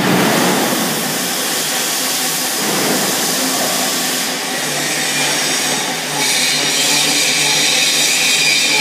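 Offline rotating gusseting machine running: its electric motor drive and the moving plastic film web give a steady whirring hiss. About six seconds in, a higher hiss joins it.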